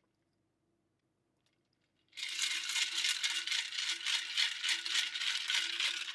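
A Stanley tumbler shaken hard, its contents rattling in a dense run of fast clicks that starts about two seconds in and lasts about four seconds.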